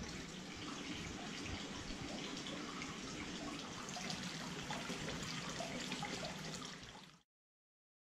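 Hot-spring water pouring steadily from a wooden spout into a wooden bathtub, with a continuous splashing trickle. It cuts off suddenly about seven seconds in.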